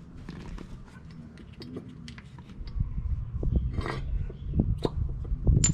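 Small metal clicks and taps from handling a brake caliper mount and its slide pins, with a low rumble from about halfway and a sharp metallic clink near the end.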